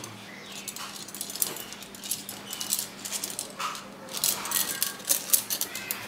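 Aluminium screwgate carabiners clinking and rattling against one another as a handful is shuffled and let drop into a pile, a run of light metallic clicks that grows busier in the second half.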